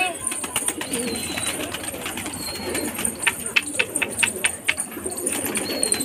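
A flock of domestic pigeons cooing in a steady low murmur, with a quick run of about eight sharp clicks a little past the middle.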